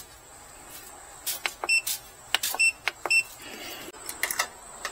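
Button clicks and short, high electronic beeps from a portable power station's control panel as its buttons are pressed: a run of sharp clicks, three of them with a brief beep.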